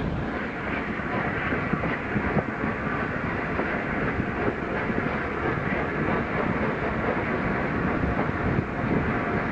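Train hauled by the steam locomotive 60163 Tornado running along the line: a steady rumble with irregular clicks from the wheels on the rails.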